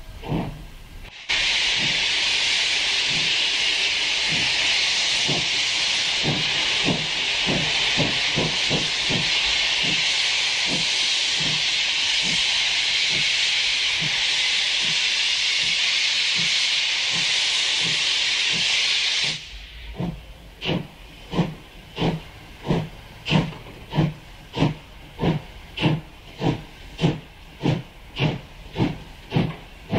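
German freight steam locomotive working away under load: a loud steady hiss of steam from the open cylinder drain cocks over its exhaust beats. The hiss cuts off about two-thirds of the way through, leaving the even chuffs of the exhaust at just under two a second.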